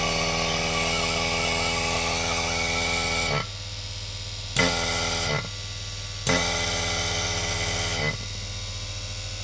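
Tasco TA150SB-2 electric rotary-vane air-conditioning vacuum pump on its test run after a rebuild, running with a steady hum. Three times its sound drops quieter for a second or so, and twice it comes back with a short rush. This fits a finger being held over and lifted off its intake port.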